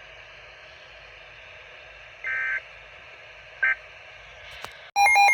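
Weather radio receiver hissing steadily with static, broken by two short digital chirps of EAS (SAME) data tones that mark the end of the tornado warning message. About five seconds in, a loud, rapidly alternating electronic alert tone starts.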